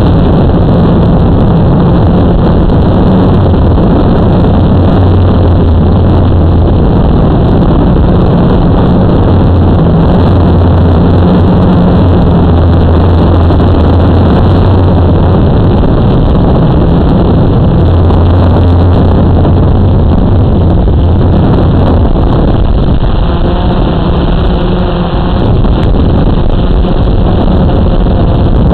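Blade 350QX quadcopter's four brushless motors and propellers running with a steady drone, loud and close through the onboard camera's microphone; the pitch shifts and the level dips briefly about three-quarters of the way through.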